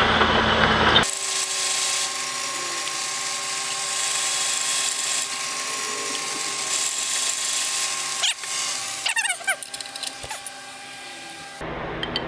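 Milling machine drilling out a weld-filled hole in a metal part: the spindle runs with a steady whine while the bit cuts, and the bit squeals a few times near the end.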